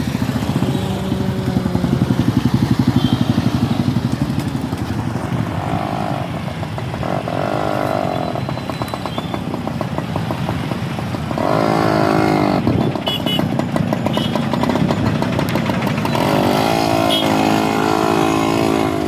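Two-stroke chainsaw engine running, revved up several times with rising whines between stretches of lower running.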